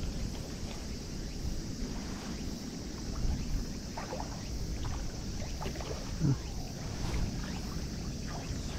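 Wind rumbling on the microphone over small waves lapping at a shore, with a few faint brief sounds about four seconds in and a short low sound about six seconds in.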